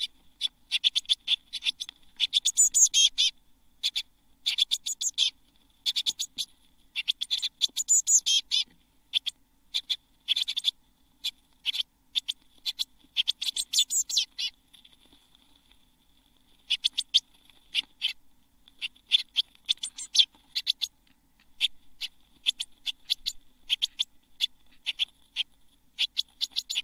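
Blue tit nestlings close to fledging, calling from inside a wooden nest box: rapid, high-pitched chirping in bursts. There is a pause of about two seconds a little past halfway.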